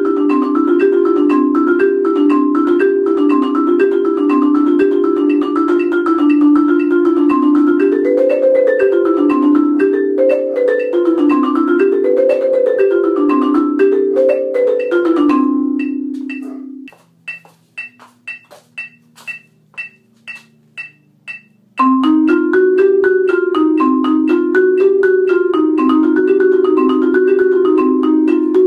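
Marimba played with mallets in fast, flowing repeated arpeggio patterns. About two-thirds of the way through, the playing fades to single soft notes about twice a second for several seconds, then the full rolling pattern comes back suddenly.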